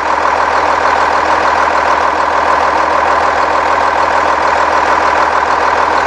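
Cummins ISC 8.3-litre inline-six diesel idling steadily, heard up close at the open rear engine compartment.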